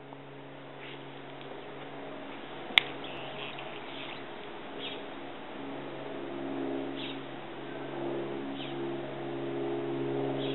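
A steady mechanical hum, like a motor running, slowly growing louder, with short high bird chirps every second or two and one sharp click about three seconds in.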